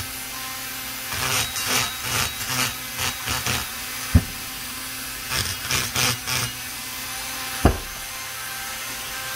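A flexible-shaft rotary tool (Dremel) with an egg-shaped burr runs steadily and grinds in two spells against the aluminium intake port of an Echo CS-670 chainsaw cylinder, roughing the port surface. Two short thumps a few seconds apart are the loudest sounds.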